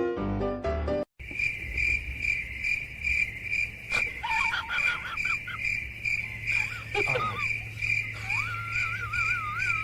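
Cricket chirping steadily, about two high chirps a second, over a low hum, with a few short wavering whistled calls. Piano music cuts off about a second in, before the chirping starts.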